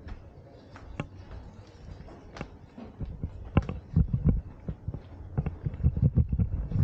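Footsteps on stone paving, sharp clicks about a second apart, with heavier low thuds from about three seconds in.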